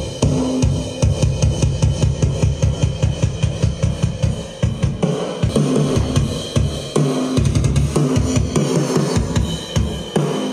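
A DIY powered speaker with a 10-inch Dayton Audio midbass woofer and a horn-loaded bullet tweeter, playing a drum track loudly: a fast, steady kick, snare and cymbal beat, recorded in the room on a phone.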